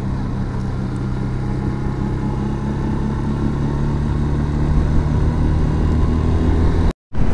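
Yamaha FZS V3's single-cylinder engine running at a steady pace while riding, with wind and road noise over it. The sound cuts out briefly near the end.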